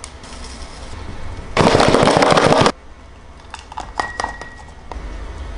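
Liquid shaken hard in a lidded plastic deli container: one loud rattling burst about a second long. After it the liquid is poured into a glass, with a few light clinks and a brief glassy ring.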